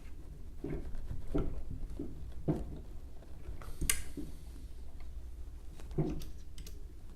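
Bracket bolts on a Creality CR-10's aluminium frame being tightened by hand: scattered light clicks and knocks of the tool and metal parts, with one sharper click about four seconds in, over a low hum.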